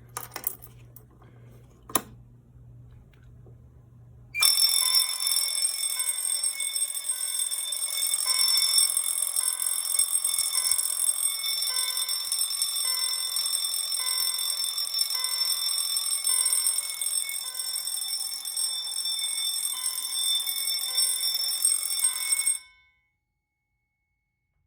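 A sharp click from a key switch turned to test about two seconds in, then a Potter MBA-24-6 fire alarm bell ringing continuously for about 18 seconds before cutting off abruptly.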